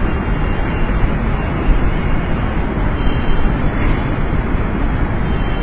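Steady rumbling hiss of background noise with no pitch or rhythm, fairly loud and unchanging throughout.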